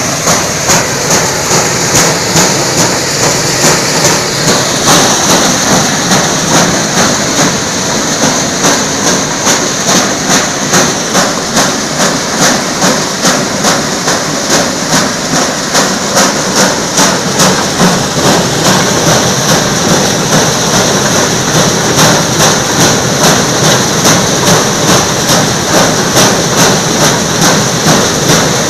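Conveyor-fed corn sheller running loud while threshing cobs: a dense mechanical clatter that pulses about twice a second, with a steady high hiss above it.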